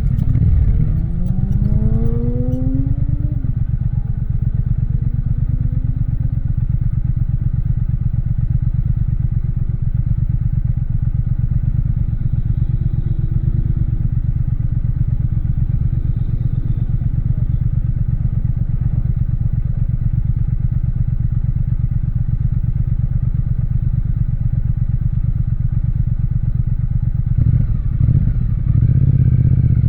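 Triumph Speed Twin's parallel-twin engine rising in pitch as it accelerates for the first few seconds, then running at a steady speed. The engine note changes briefly near the end.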